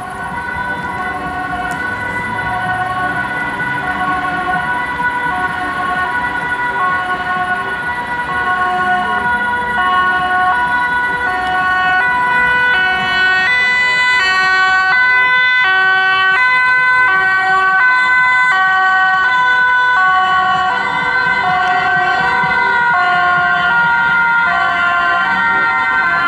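German two-tone emergency-vehicle sirens (Martinshorn), alternating between two notes and growing louder over the first ten seconds as the vehicles approach. From about halfway a second horn sounds out of step with the first.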